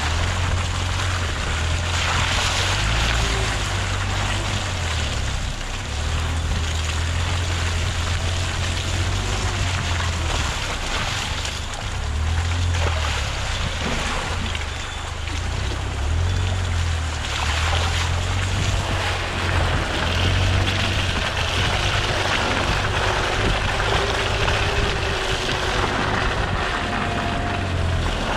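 Land Rover Freelander 2 driving along a muddy dirt track, heard from a camera mounted low beside the front wheel. Uneven wind buffeting on the microphone rumbles over a steady rush of tyre and driving noise.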